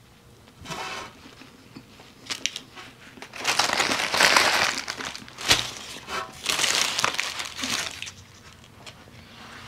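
Paper food wrapper crinkling and rustling as it is handled, in several bursts, loudest in the middle, with one sharp click about five and a half seconds in.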